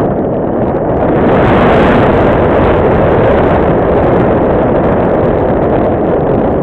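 Loud, steady wind rush from airflow over the onboard camera's microphone on a Radian Pro electric glider gliding with its motor off.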